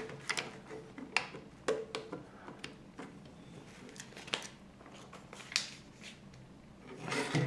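Small ABS plastic LEGO bricks being handled and pressed together: a series of short, sharp plastic clicks and taps at irregular intervals, about a dozen in all.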